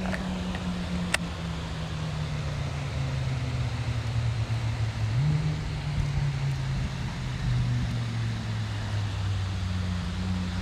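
A motor engine running steadily in the distance. Its pitch drifts slowly down, then steps up about halfway through, with one sharp click near the start.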